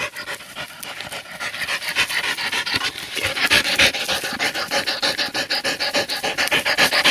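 Black Labrador panting hard and fast, close up, out of breath from running; the quick, even breaths grow louder after the first second or so.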